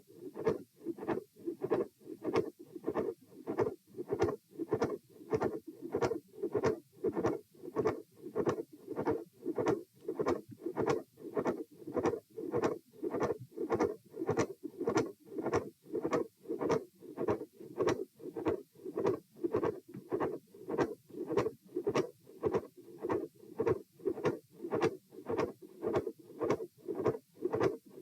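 Heartbeat heard through a stethoscope, a fast, regular beat at about 114 beats a minute with the subject standing, with scratchy contact noise. The uploader's findings at this spot are a midsystolic murmur, a click and a fixed split second heart sound.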